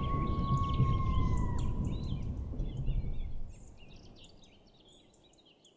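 Tail of the channel's logo outro sound: a low rumble and a held tone that dips about a second and a half in, with quick birdlike chirps over it, everything fading away by about four seconds in.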